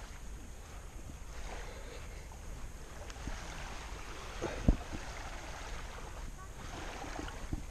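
Steady low wind rumble on the camera microphone, with gentle surf faintly underneath. One sharp thump sounds a little past halfway.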